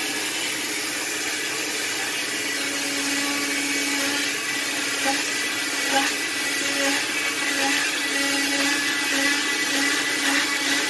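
Electric oscillating cast saw running at high speed, cutting through a green fiberglass leg cast: a steady motor whine with the grinding of the blade on the cast over it. The cutting measures about 75 dB on average.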